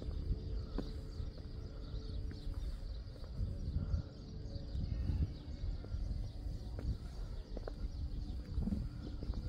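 Outdoor background noise: a low rumble with a faint steady hum, and scattered light clicks of footsteps on pavement at an uneven pace.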